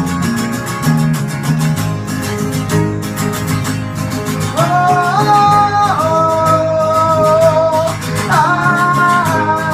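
Live band music: strummed guitars throughout, and from about halfway a voice sings long held notes over them.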